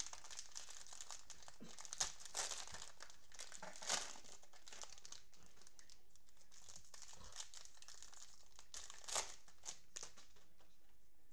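Plastic cellophane wrapper of a Panini Prizm football cello pack crinkling as gloved hands tear it open and pull the cards out. There are sharper crackles about two and four seconds in, and again near nine seconds.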